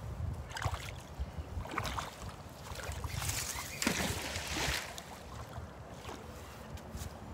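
Water sloshing and dripping as a magnet-fishing rope is hauled hand over hand out of a ditch, with a few small knocks and wind rumbling on the microphone. A louder rush of water noise comes about three seconds in.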